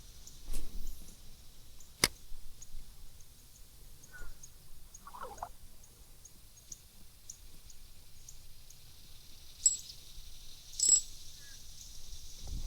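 Light spinning rod and reel being cast and worked: a sharp swishing click about two seconds in, then faint, evenly spaced ticking while the lure is retrieved, and two sharp clicks near the end. A couple of short chirps come in between.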